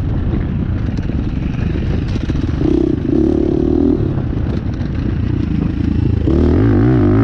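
KTM enduro dirt bike engine running under changing throttle on a rough trail; the note steadies briefly about three seconds in, then the rider opens it up and it rises and grows louder near the end.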